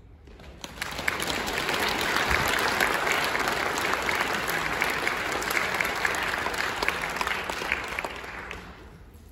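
Audience applause, building over the first second, holding steady, then dying away near the end.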